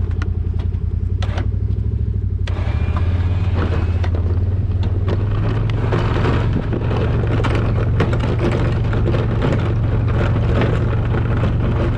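Polaris RZR side-by-side engine running steadily, with a rush of crackling, scraping noise coming in about two and a half seconds in as it picks up a little in pitch.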